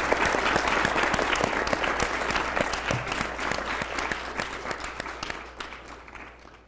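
Audience applauding, dense clapping that thins out and fades away over the last couple of seconds.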